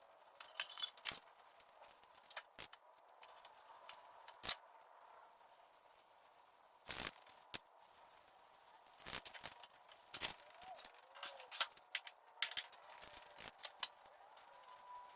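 Scattered light clicks and knocks of parts and tools being handled, with a few short scraping bursts between them.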